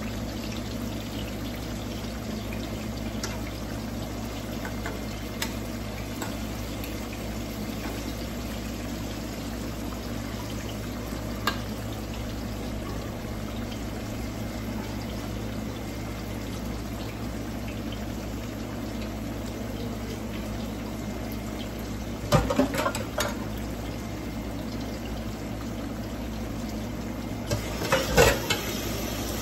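Ripe plantain slices frying in oil in a skillet, a steady sizzle. A few brief clicks and clatters of kitchen utensils come about three quarters through and again near the end.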